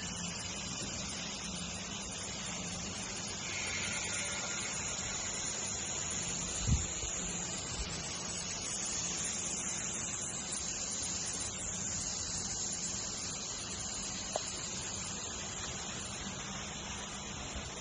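Steady machine hiss with a low hum underneath, broken by a single thump about seven seconds in and a faint click later.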